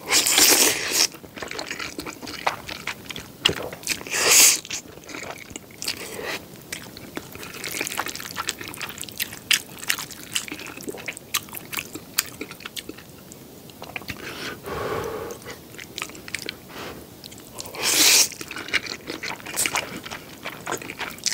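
Close-miked eating of jjapaghetti black bean noodles. There are loud slurps right at the start, around four seconds in and again near the end, with wet chewing and mouth smacks in between.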